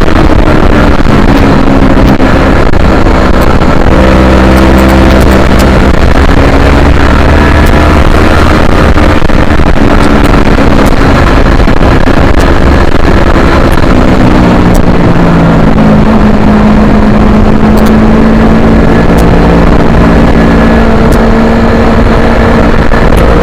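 Yamaha R3's 321 cc parallel-twin engine pulling hard on track under a loud rush of wind noise. The engine note holds, drops a little past halfway, then slowly climbs again.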